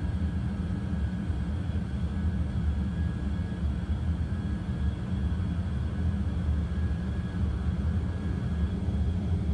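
Boeing 737 simulator's engine and runway sound during the takeoff roll: a steady low rumble of the twin jet engines at takeoff thrust, with a faint steady whine above it.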